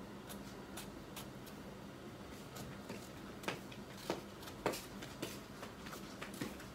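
Knife peeling an unripe green mango: faint, irregular crisp cuts and scrapes through the skin, with a few sharper clicks around the middle.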